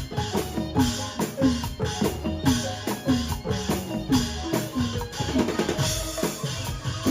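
Background music with a steady percussive beat of short, pitch-dropping drum thumps.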